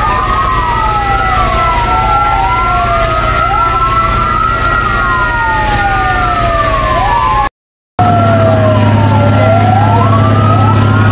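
Several fire-truck sirens wailing at once, their pitches rising and falling out of step with each other, over a steady low hum. The sound cuts out to silence briefly about two-thirds of the way through, and the hum is stronger after it.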